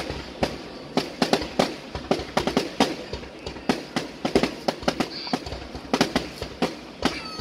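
Aerial fireworks going off in a rapid, irregular series of sharp bangs, several a second.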